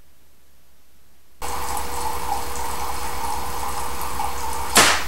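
Water streaming steadily from a Kelvin water-drop generator into its collecting cans, starting abruptly about a second and a half in. Near the end, a single sharp crack.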